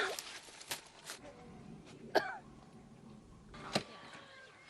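A woman coughing: several short, separate coughs spread irregularly over a few seconds. It is the persistent cough of asthma made worse by plum-blossom pollen allergy.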